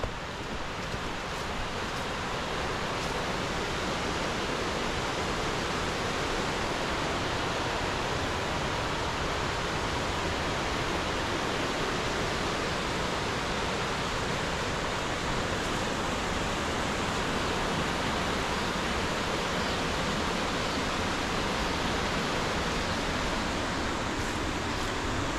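Steady rushing of a stream, an unbroken even hiss of running water that swells a little over the first seconds and then holds.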